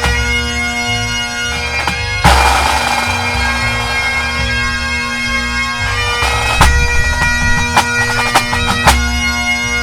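Pipe band playing: Highland bagpipes sound the tune in unison over steady drones, backed by snare and bass drums. There is a loud drum accent about two seconds in and sharp snare strikes near the end.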